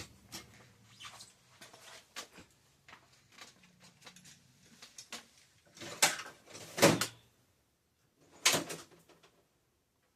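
Workshop handling noises: scattered light clicks and knocks of tools and bicycle parts being moved. There are louder clanks about six, seven and eight and a half seconds in.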